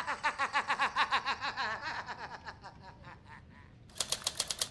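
A rapid laugh of many short pulses, falling in pitch and fading away over about three seconds. About four seconds in, typewriter keys start clacking quickly.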